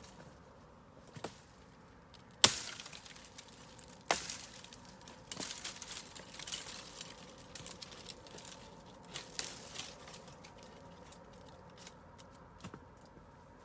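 A series of sharp cracks and knocks at irregular intervals, the loudest about two and a half seconds in, with softer crackly rustling between them.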